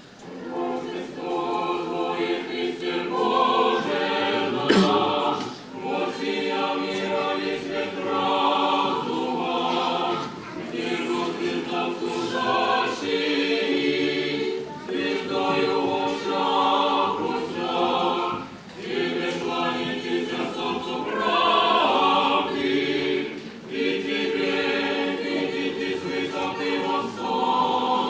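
A choir singing in short phrases with brief breaks between them. A single sharp knock sounds about five seconds in.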